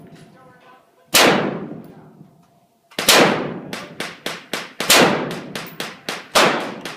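Shots from a Colt LE6920 AR-15 rifle, each ringing out. A single shot comes about a second in, then a rapid string of about a dozen shots follows from about three seconds in.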